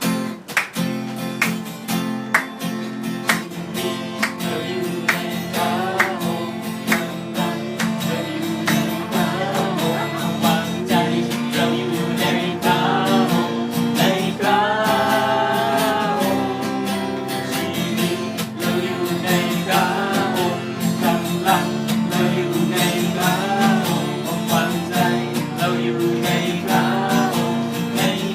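Acoustic guitar music, plucked and strummed, with a sung melody carried over it from about six seconds in.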